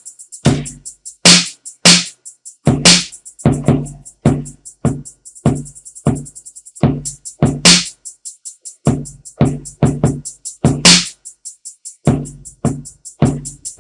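Trap-style drum machine beat played from Native Instruments Maschine's 808 Southern Kit. Fast closed 808 hi-hats tick throughout, with a quicker hi-hat roll about halfway through. Sharp snare hits and low 808 kicks fall between them.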